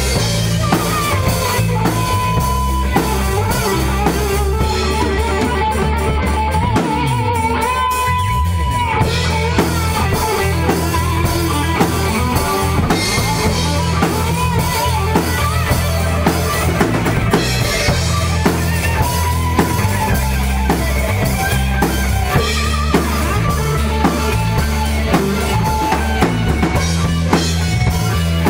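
Rock band music: drum kit keeping a steady beat under electric guitar, with a lead guitar line bending in pitch.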